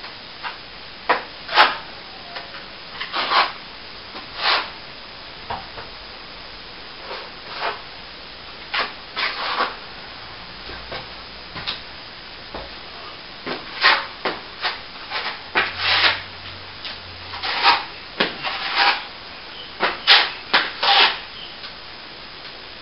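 Hand tool scraping over plaster in short, irregular strokes, some clustered in quick runs of two or three.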